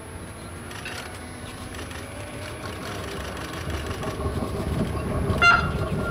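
Taiwan Railways EMU800 electric multiple unit approaching on the line, its running noise growing steadily louder as it nears. There is a brief pitched toot about five and a half seconds in.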